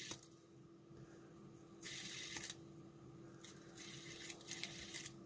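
Cheap fidget spinner with a plastic-ball bearing, flicked by finger and whirring briefly in short spells, about two seconds in and again toward the end, with light clicks as the finger strikes its arms.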